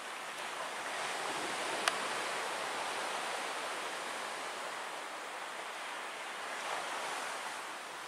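Black Sea waves washing on the shore: a steady rushing that swells twice, with a single sharp click about two seconds in.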